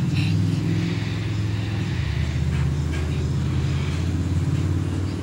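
Steady low mechanical hum of a motor or engine running, with a slight shift in pitch about two seconds in.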